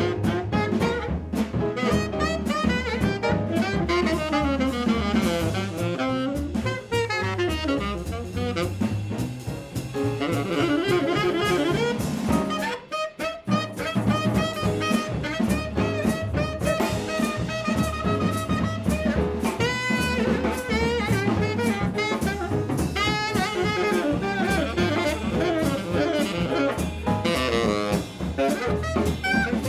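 Tenor saxophone soloing over a small jazz band, with drums, upright bass and piano keeping a steady swing beat. The band cuts out for a moment about thirteen seconds in, then comes back in.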